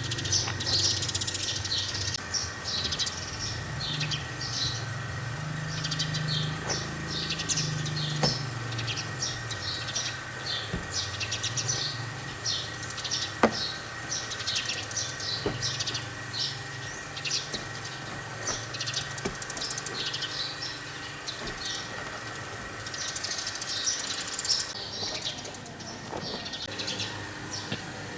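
Birds chirping busily: many quick, high chirps one after another, over a steady low hum, with a few sharp clicks, one loud click about halfway through.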